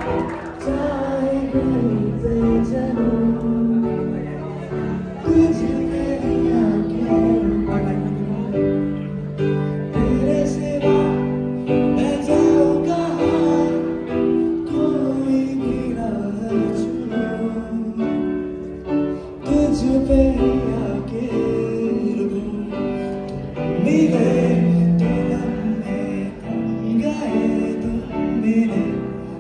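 Electronic keyboard played live: a melody over held chords, the notes changing every second or two at a steady level.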